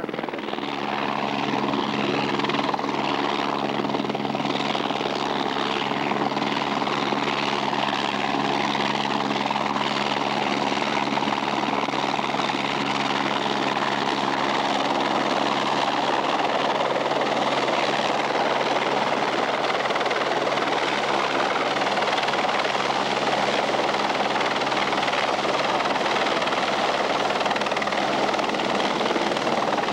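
Light single-rotor helicopter descending to land, its rotor and turbine running with a steady droning hum. Through the second half the hum is buried under a broader, noisier wash of sound as the helicopter comes in low over the ground.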